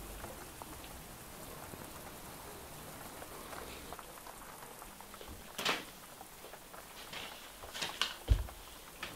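Light rain pattering steadily, with a few sharp taps in the second half and a short low thump near the end.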